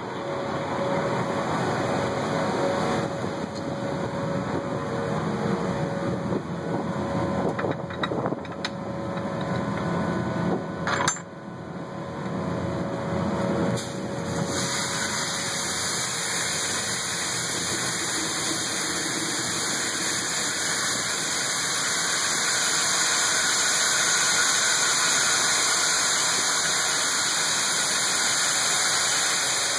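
Semi-truck diesel engine idling, with a few metallic knocks. About halfway through, a steady rushing hiss sets in: shelled corn pouring from the grain trailer's hopper into the elevator pit.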